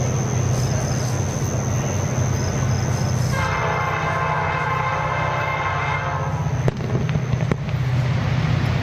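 A diesel locomotive's multi-note air horn sounds one long blast from about three seconds in until about six seconds, over a steady low rumble of the approaching train. Two sharp clicks come near the end.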